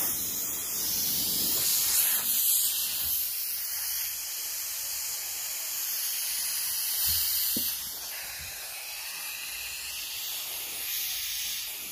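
Compressed air hissing steadily out of a PCP air rifle's high-pressure reservoir tube through a brass male quick-coupler fitting. The roughly 4000 psi charge is being bled off slowly so the tube can be opened safely. The hiss eases slightly about eight seconds in.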